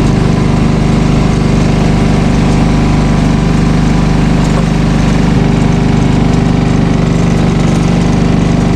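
Lawn tractor's engine running steadily with its PTO-driven snowblower engaged.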